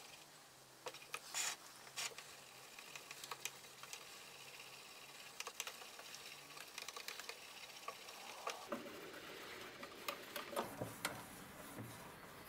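A wooden stick stirring thick paint in a metal tin, scraping and knocking against the tin's sides and bottom as it loosens the thickened paint settled at the bottom. A few louder knocks come about one and a half and two seconds in, and again near the end.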